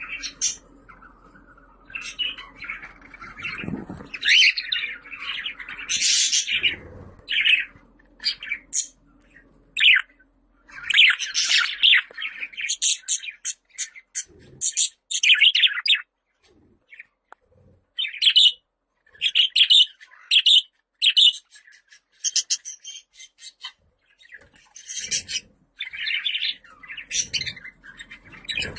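Budgerigar chatter: quick, high chirps and warbles coming in bursts, with short pauses between them.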